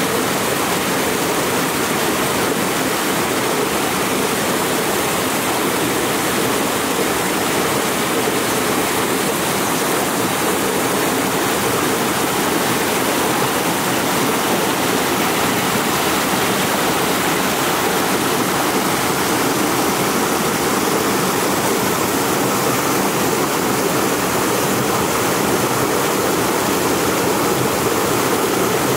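Shallow rocky mountain stream rushing steadily over stones.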